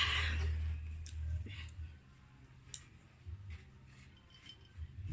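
Scattered soft clicks and ticks of someone chewing and eating, over a low hum.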